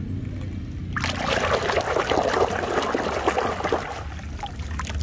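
Water trickling and splashing over a muddy toy as it is rinsed clean, starting about a second in.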